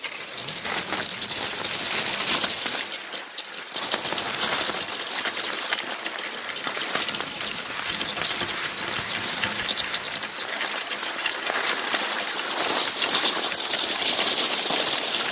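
Cross-country skis gliding and scraping over packed snow: a steady crackling hiss, with a brief lull about three seconds in.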